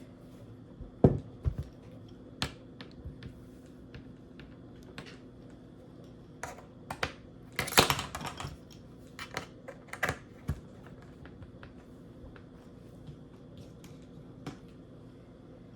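Scattered light clicks and taps of small tools and parts being handled on a work surface during a laptop repair, with a denser clatter of several taps about eight seconds in. A faint steady hum runs underneath.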